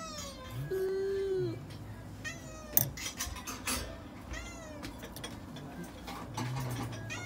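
Cat meowing several times: a string of short calls that fall in pitch, one held call about a second in, and a sharp click near three seconds in.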